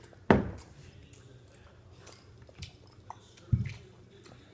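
Two knocks of a drinking glass on a wooden table: a sharp one just after the start and a duller, lower one about three seconds later, with faint chewing of jelly beans between.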